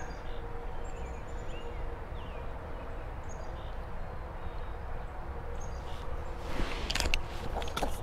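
Outdoor ambience with a steady low rumble and a few faint bird chirps in the first seconds. Near the end come rustling and knocks as the body-worn camera is brushed and covered.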